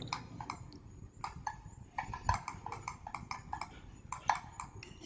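Faint, irregular clicking of a computer mouse, a few clicks a second, with one louder click a little over two seconds in.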